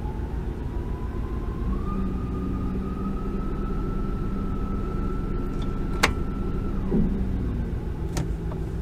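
2008 Ford F-150's 4.6 V8 idling in neutral with a whine from the 4R70W automatic transmission, the whine it makes in neutral once shifted through a gear. The whine rises in pitch over the first two seconds, holds steady, and cuts off about seven seconds in. A sharp click comes about six seconds in.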